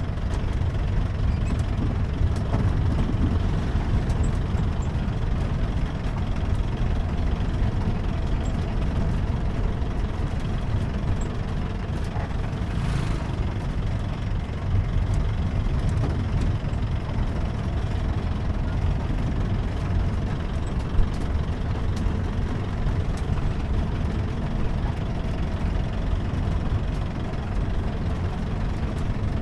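Jeep engine running steadily while driving, with a continuous low rumble from the road. A single sharp knock comes about two-thirds of the way through.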